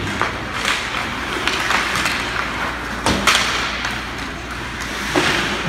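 Ice hockey play in a rink: skates scraping the ice and sticks and puck knocking, with the sharpest knock about three seconds in.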